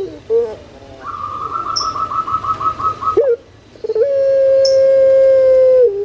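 Puter pelung, a long-voiced Barbary dove (Streptopelia risoria), calling: a rapid rolling trill of about five pulses a second, a short pause, then one long steady coo held for about two seconds that drops in pitch at its end. Two tiny high chirps are heard in between.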